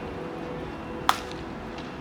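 A single sharp crack about a second in, typical of a baseball struck by a bat in practice, over steady background music.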